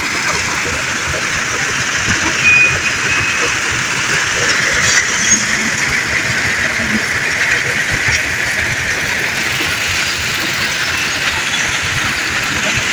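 Hyundai HL665 wheel loader working in a gravel quarry: its diesel engine runs under load as it carries and lifts a full bucket of gravel, heard as a steady rushing, rattling machinery noise.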